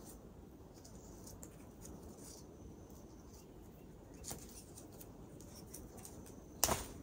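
Faint rustling and light clicks of hands handling a roll of PTFE thread seal tape and a plastic pipe fitting, with one sharper click near the end.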